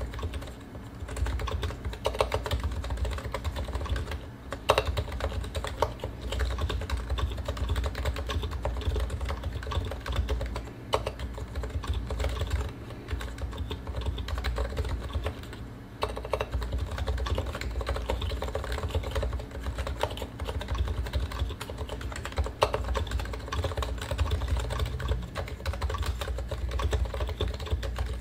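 Continuous typing on a Realforce R2 PFU Limited keyboard: Topre capacitive switches with uniform 45 g rubber domes, silent sliders and stock PBT keycaps. Keystrokes come in a dense stream, with a few louder strokes and short pauses.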